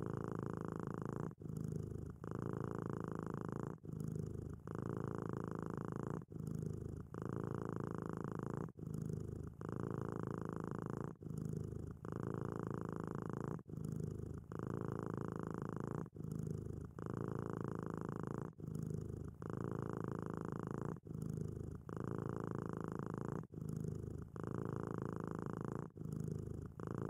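Domestic cat purring steadily, the purr breaking briefly at each turn of breath, about once every second and a quarter.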